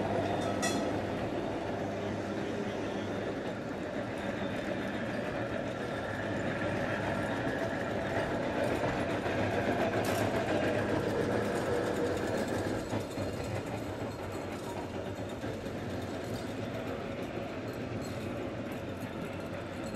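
Vintage electric street trams running on track: a steady whirr of traction motors and gears with the rumble of steel wheels on the rails, and a couple of sharp clicks from the wheels.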